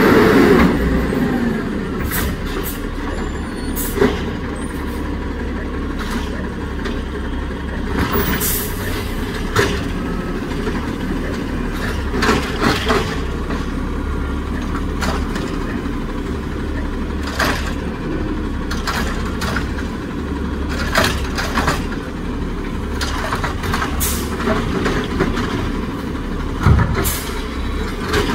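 Peterbilt 320 garbage truck with a Scorpion body, its diesel engine running steadily at low speed, with a series of sharp clanks and knocks every few seconds and short air hisses.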